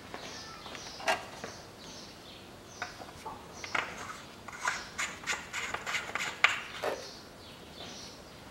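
Light clicks and taps of a gloved hand handling parts at the engine's open oil filler neck, a few at first and coming thick and fast in the second half. Faint short bird chirps sound now and then.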